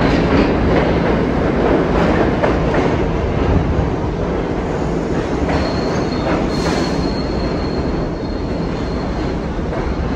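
Subway train pulling into an underground station along the platform: a loud steady rumble with repeated clacks of wheels over the rail joints. A thin high wheel squeal comes in about halfway through and holds for a few seconds.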